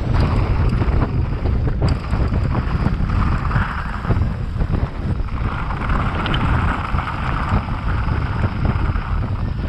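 Wind buffeting the microphone over the rumble and rattle of a mountain bike riding fast down a rough bikepark trail, with a few sharp knocks and tyre hiss that swells for several seconds in the middle.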